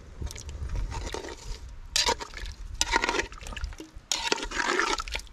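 Water being poured into a cooking pot in three pours, about two, three and four seconds in, the last one longest: topping up the soup to cover the food.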